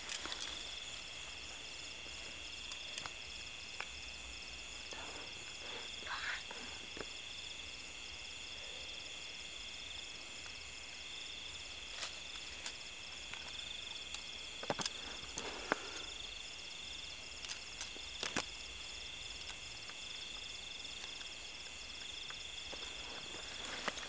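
Steady high, pulsing trill of night insects such as crickets, with scattered sharp clicks and short rustles, a few of them clustered about two-thirds of the way in.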